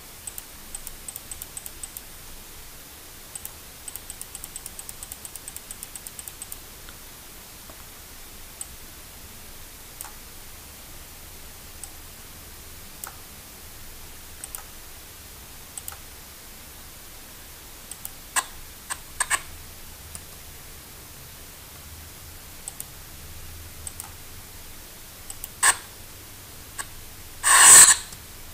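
Faint clicks of a computer mouse and keyboard, in quick runs over the first several seconds and scattered after, over a low steady hiss. A short, loud noisy burst comes near the end.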